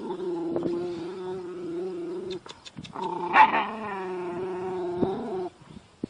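Dog growling: two long, steady growls, the second with a sharper snarl near its start.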